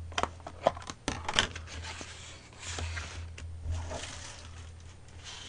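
Plastic lunchbox containers being handled and set down on a table: a quick run of light clicks and knocks in the first second or so, then softer handling noise, over a low steady hum.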